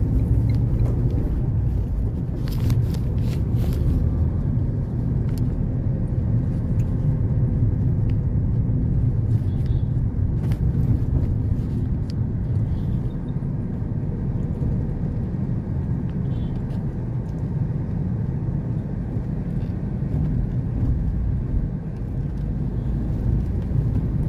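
Steady low rumble of a motor vehicle running, with a few clicks about three seconds in.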